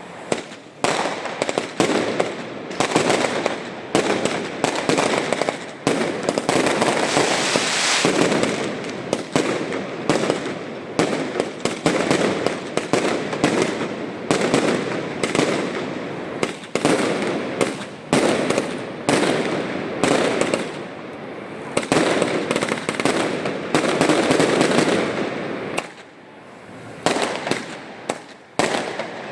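Fireworks display going off in dense, rapid volleys of bangs and crackling, nearly continuous, with brief lulls near the end.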